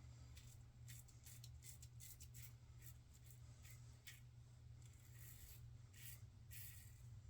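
Faint, short scratchy strokes of a safety razor scraping across lathered stubble, about a dozen at an uneven pace.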